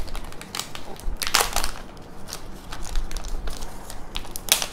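Thin clear plastic protective film being peeled off a new smartphone's screen and crinkled in the fingers: an irregular run of crackles, with louder bursts about a second and a half in and again near the end.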